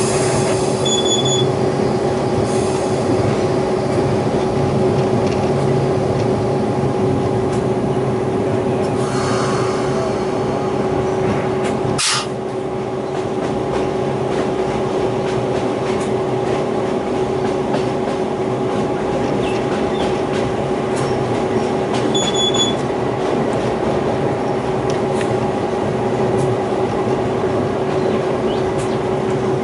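DQ class diesel-electric locomotive hauling a loaded ore train: a steady engine drone with wheel and rail noise and a constant whine held throughout. A single sharp click about twelve seconds in.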